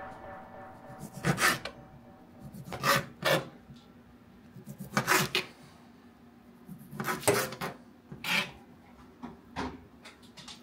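Kitchen knife slicing smoked sausage on a cutting board: about eight short scraping cuts, unevenly spaced.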